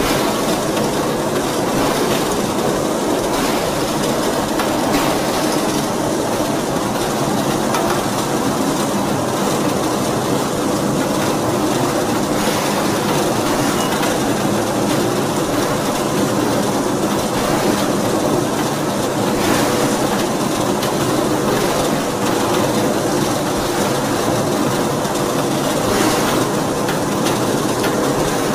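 D53K CNC radial-axial ring rolling machine rolling a red-hot steel ring: a loud, steady mechanical rumble and clatter from the rolls and drives.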